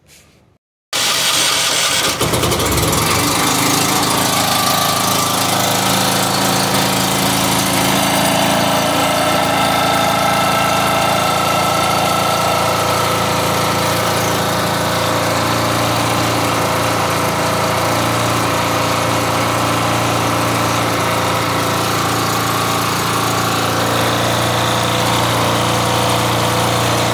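Engine of a 2 kVA Chinese portable generator running steadily at a constant speed, coming in suddenly about a second in. It is running with a freshly replaced carbon brush holder and is now producing electricity again.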